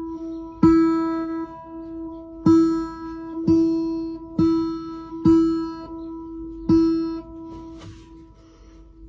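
Acoustic guitar string plucked six times on the same single note at an uneven pace, each note ringing and fading before the next.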